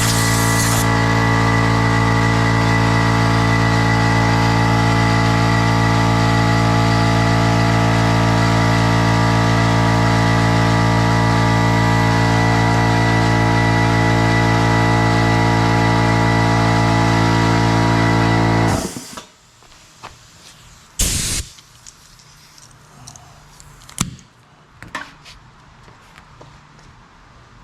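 Electric air compressor running steadily with a constant hum, then shutting off suddenly about 19 seconds in. A few light knocks and handling sounds follow.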